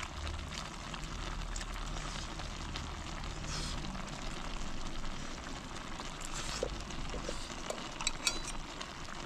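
Shrimp cooking in liquid in a pan on a camping gas stove: a steady low simmer and sizzle with a few faint pops near the end.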